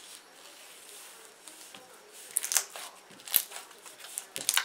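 Jelly cube slime being squished by hand, giving sharp wet crackles and pops. These begin about two seconds in, with the loudest snaps about midway and near the end.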